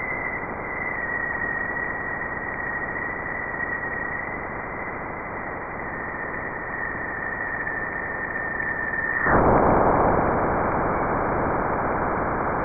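NASA's sonification of pressure waves from the black hole in the Perseus galaxy cluster: a dense, hissing drone with a thin high whistle that drifts slightly lower. The whistle stops about nine seconds in, and the hiss grows louder and brighter.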